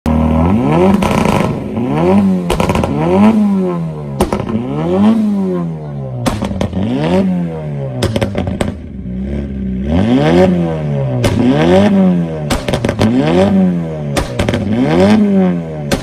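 Second-generation Mitsubishi Eclipse engine revved in quick blips about once a second. As each rev falls, the exhaust pops and crackles sharply: overrun backfire, the "popcorn" effect.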